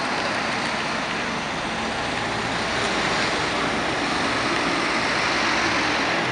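Street traffic passing close by: a box truck and a car go past, then a fire department aerial ladder truck drives by, the tyre and engine noise getting louder toward the end.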